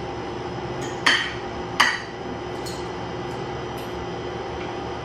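Fork and spoon clinking against a ceramic plate: two sharp clinks about a second in and just under two seconds in, then a couple of fainter taps, over a steady background hum.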